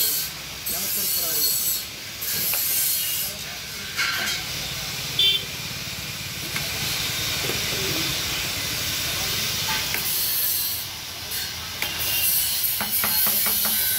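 A steady hiss that dips briefly a few times, with a low rumble swelling in the middle and a few light clicks near the end.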